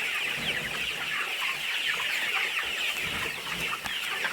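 A large flock of young chickens, pullets about ten weeks old, cheeping together: many overlapping short, high, falling peeps in a steady chorus.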